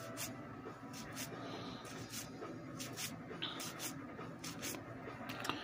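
Cardboard trading cards being slid and flicked one at a time from one stack onto another: soft papery flicks and rubs, about two a second.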